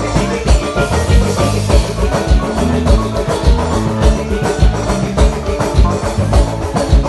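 Loud amplified Brazilian carnival dance music with a steady, heavy drum beat, two to three bass strokes a second.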